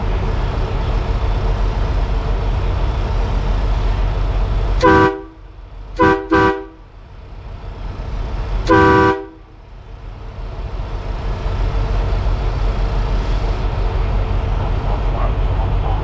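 Three-trumpet air train horn on a Kenworth T680 semi sounding in short blasts on its first test after installation: one blast about five seconds in, two quick toots a second later, and one more near nine seconds, each a chord of several tones. A steady low rumble runs underneath.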